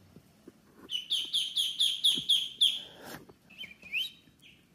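Muscovy ducklings peeping: a run of about eight high, falling peeps, roughly four a second, starting about a second in, then a few softer, rising chirps near the end.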